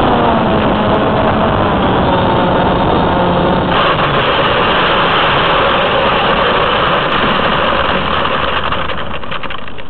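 Small electric RC plane's motor and propeller whining and winding down in pitch as it comes in to land. A few seconds in, a loud scraping hiss starts as the foam fuselage touches down and slides along asphalt. It fades as the plane slows to a stop near the end.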